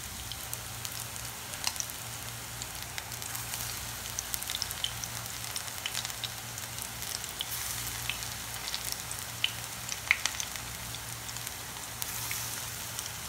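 Buckwheat-flour (kuttu) pakoras frying in hot ghee: a steady sizzle with scattered pops and crackles. Near the end another dollop of batter is dropped into the oil and the sizzle brightens.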